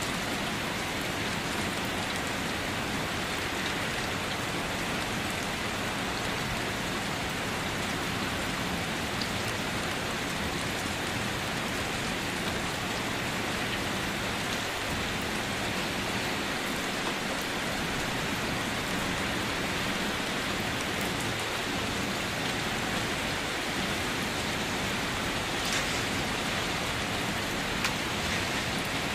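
Steady rain falling, an even hiss of drops throughout, with a few slightly louder drop taps near the end.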